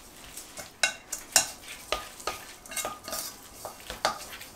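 Wooden chopsticks stirring chopped wild greens and raw egg in a stainless steel bowl, with repeated sharp clicks about twice a second as the chopsticks knock against the bowl.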